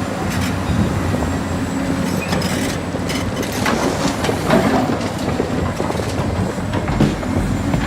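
Radio-controlled model excavators' electric motors and gearboxes whirring steadily, with scattered clicks and knocks from the tracks and the wood being handled.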